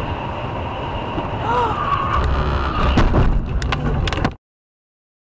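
Steady road noise inside a moving car, then a loud crash about three seconds in as the car collides, followed by about a second of knocking and rattling before the sound cuts off suddenly.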